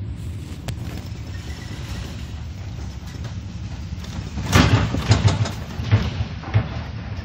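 Heavy sea against a tanker's bow: a steady low rumble, then about four and a half seconds in a wave crashes over the bow and spray lashes the ship in a loud surge with several sharp hits.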